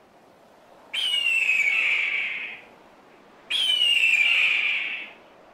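A hawk screaming twice: two long, hoarse screams that slide slightly downward in pitch, each about a second and a half long, the second coming about two and a half seconds after the first.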